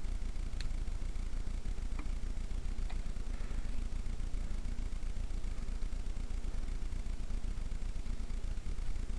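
Steady low background rumble with three faint, light clicks in the first three seconds.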